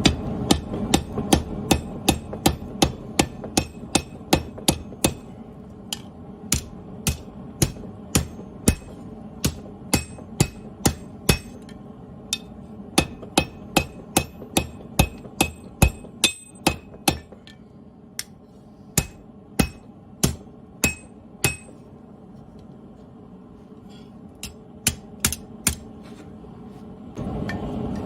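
Hammer blows on hot steel at the anvil while a machete blade is rough-forged. The strikes come in a steady rhythm, about two a second at first, then slower, with a pause of a couple of seconds before a last few blows. A steady rushing noise runs underneath and gets louder near the end.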